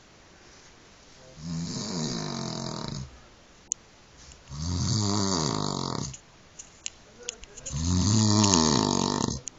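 A man snoring loudly: three long snores about three seconds apart, each rising and then falling in pitch, the last the loudest. A short click comes between the first two.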